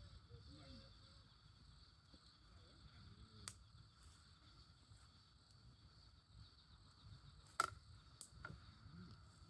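Campfire crackling faintly, with a few sharp pops, the loudest about two thirds of the way in, over a steady high trill of insects.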